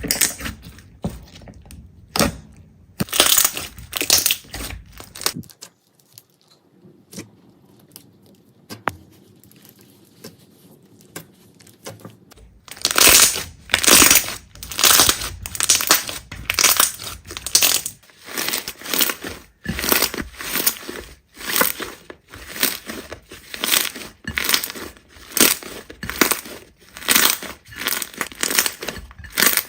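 Slime being squeezed and pressed by hand, making repeated crackly squishes, about one to two a second. There is a lull of several seconds in the first half.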